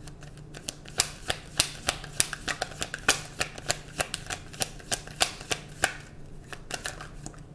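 A deck of tarot cards being shuffled by hand: a quick, uneven run of sharp card slaps and clicks, about four a second. It stops shortly before the end.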